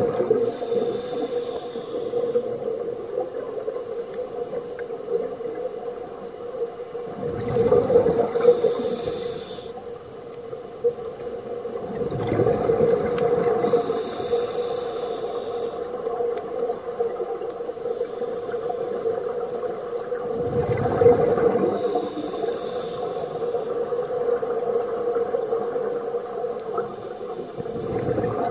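Scuba diver breathing through a regulator underwater over a steady hum: a hiss on each inhale and a low gurgling rush of exhaled bubbles. The breaths come every several seconds, about four times.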